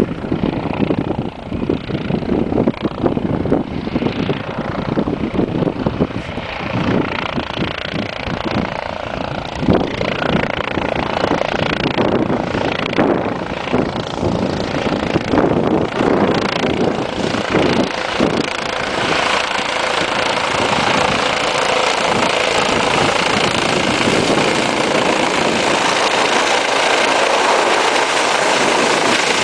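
Police helicopter flying in from a distance and coming overhead. Its rotor noise is choppy at first, then grows steadily louder into an even, steady rush with a high engine whine in the second half.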